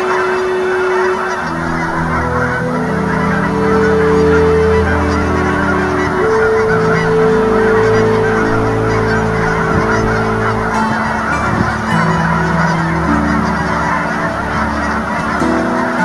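A large flock of Canada geese honking all at once, a dense unbroken chorus. Low held tones that shift in steps, like a music pad, run underneath.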